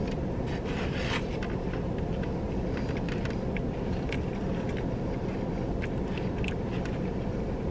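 Steady low rumble inside a car's cabin, with scattered small scrapes and clicks of hands picking through a takeout food box.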